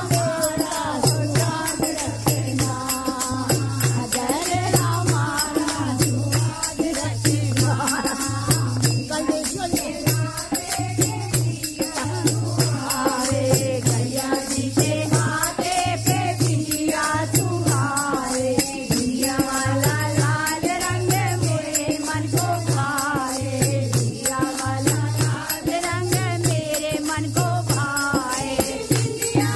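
Devotional Navratri kirtan: voices singing a bhajan to the goddess, over a steady rhythm of shaken jingling percussion and a low drum beat about once a second.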